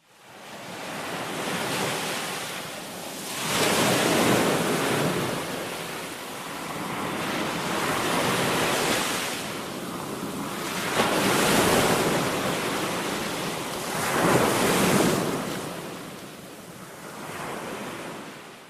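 Sea waves washing in: a rushing surf noise that swells and falls every three to four seconds. It fades in at the start and fades out near the end.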